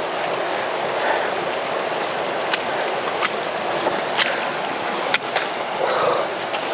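Steady rushing of a moorland stream, with a few sharp clicks scattered through it.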